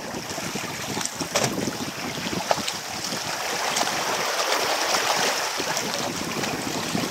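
Water lapping and splashing against a boat's hull, with wind buffeting the microphone; many small splashes and knocks throughout.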